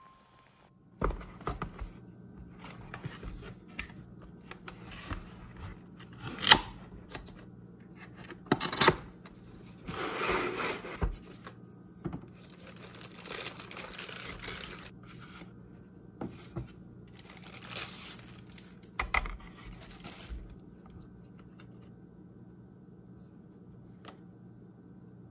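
Packaging being unpacked by hand: plastic wrap crinkling and tearing, paper and a moulded pulp tray rustling and scraping in irregular bursts, with a few sharp knocks. The handling quietens near the end over a faint low steady hum.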